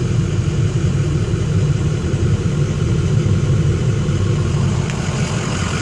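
2004 Ford F-450 Super Duty's 6.0 L Power Stroke V8 turbo-diesel idling, a steady low rumble.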